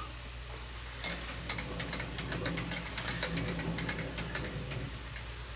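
A machine tool taking a light finishing (spring) pass with a boring bar in a steel steering coupler. Rapid, irregular clicking and rattling of the cut starts about a second in and dies away near the end, over the steady hum of the running machine.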